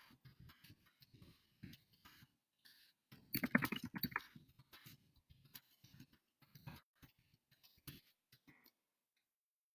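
Faint, irregular scratching and tapping of a pen writing on paper, with a woman briefly humming about three and a half seconds in.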